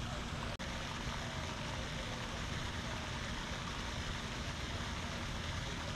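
Steady outdoor noise with a flickering low rumble, typical of wind buffeting the microphone, briefly cut off about half a second in.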